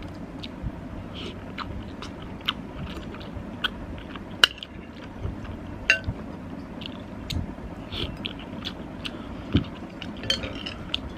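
Close-miked mouth sounds of someone chewing soft macaroni pasta soup: small wet smacks and clicks scattered throughout, a few sharper clicks among them, the sharpest about four and a half seconds in, over a steady low hum.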